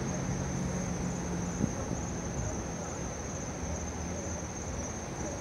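Crickets trilling steadily at a high pitch, over a low rumble.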